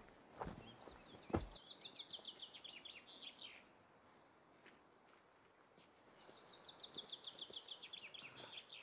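A songbird singing twice, each song a rapid trill of repeated high notes about three seconds long that drops slightly in pitch and ends with a flourish. Two sharp thumps near the start, the second the loudest sound.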